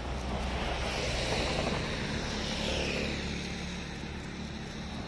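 A motor vehicle driving past close by, its sound swelling and then fading, with its pitch falling as it goes by.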